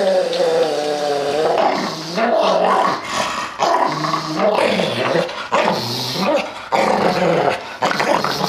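Dog growling with teeth bared, in long wavering pitched bouts with short breaks, while being toweled in a bathtub.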